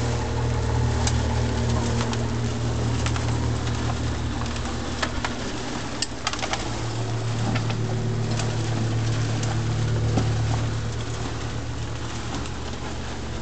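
Motor-driven rotary drum screener running with a steady low hum, while sifted worm castings patter down through the mesh into plastic bins, with scattered sharp ticks.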